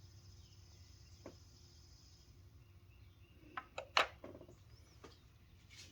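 Oil filler cap on a BMW B58 engine being twisted off: one faint click about a second in, then a quick cluster of sharper plastic clicks around four seconds in, the last the loudest, over low background hiss.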